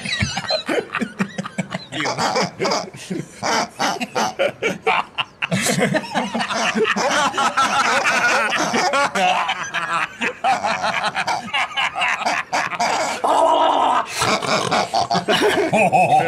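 A man laughing loudly in rapid, repeated bursts; after about five seconds the laughter becomes denser and more continuous.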